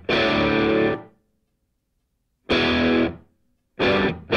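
Background rock music: distorted electric guitar chords hit in short stabs, each about a second long with silent gaps between. Near the end they run into continuous playing.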